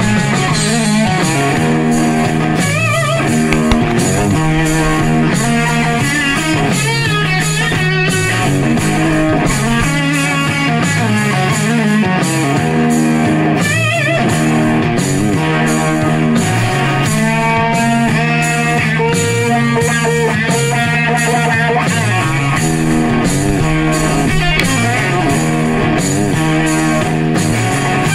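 Guitar instrumental music: a lead melody with bent, wavering notes over held low bass notes and a steady beat.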